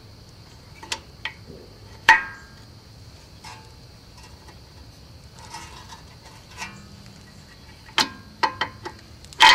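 Metal clicks and clinks of steel drum-type parking brake shoes being worked over the rear axle hub and into the parking brake lever mechanism of a 1970 Mercedes-Benz 280 SE. Scattered light ticks are broken by a few sharp, briefly ringing clanks, about two seconds in, near eight seconds and again near the end.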